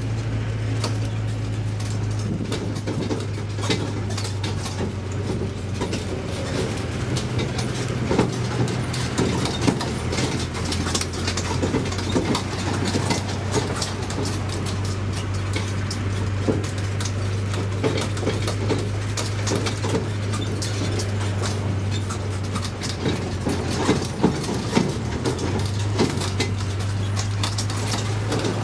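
Tourist road train (mini train) running on the road with a steady low engine drone. The open carriages rattle and knock over the road surface, with scattered sharp clicks throughout.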